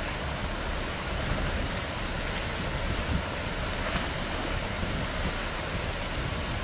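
Steady rushing noise of wind and water, with an uneven low rumble underneath.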